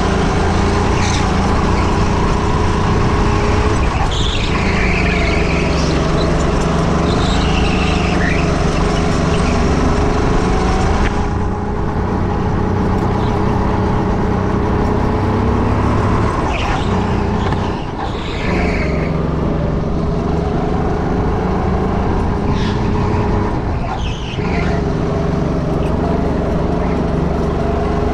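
Onboard sound of a go-kart's motor running at speed, its pitch and level easing off briefly three times, as if lifting for corners, then picking up again. Short high squeals come through now and then.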